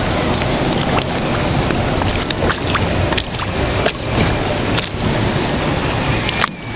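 Log flume boat riding along its water trough: a steady rush of water and wind, broken by irregular sharp knocks as the boat bumps against the trough walls.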